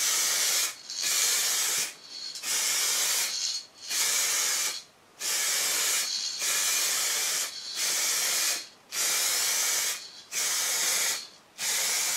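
Aerosol spray can of colour-matched blue car paint hissing in short passes of about a second each, with brief breaks between, about ten in all, laying on the first coat over the body repairs.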